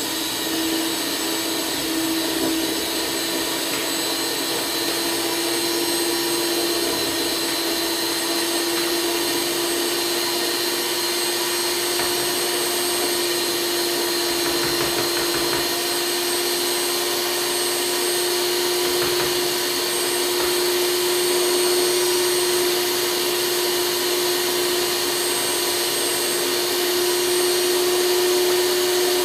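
Electric stand mixer running steadily, its beaters turning in cake batter, with a steady motor whine.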